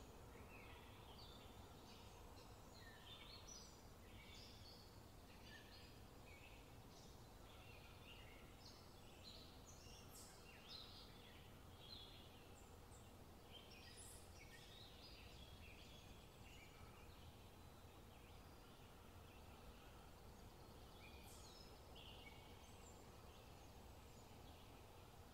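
Faint songbird chirps and short whistles, many overlapping in the first fifteen seconds or so and only a few after that, over a low, steady background hiss.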